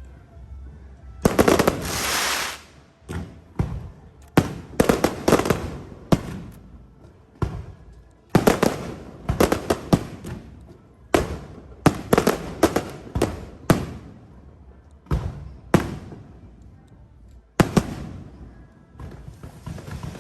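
Fireworks going off: a string of sharp, irregularly spaced bangs, with a longer hissing, crackling burst about a second in and another crackle building near the end.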